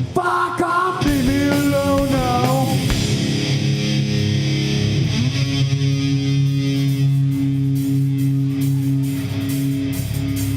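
Live rock band playing with amplified electric guitar: bending, sliding melodic notes for the first few seconds, then long held notes over a steady low end.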